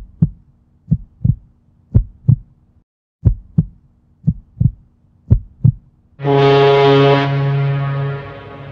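Intro sound effect of a heartbeat-like double thump, six times at about one a second. About six seconds in a loud held chord of many stacked tones starts, then fades down about two seconds later.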